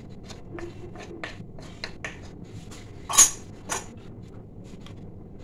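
Wooden spatula scraping and tapping against an aluminium kadai as vermicelli pulao is stirred. A louder metallic clatter comes about three seconds in and a smaller one just after, as the utensils are set down in a steel bowl.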